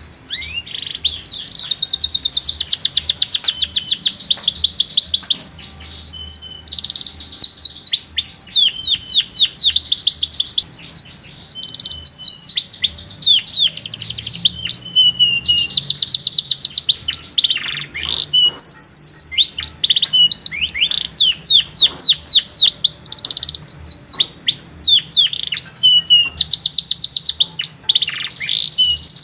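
Domestic canary singing a long, loud, high-pitched song of rapid trills, runs of quickly repeated notes, with only short breaks between phrases.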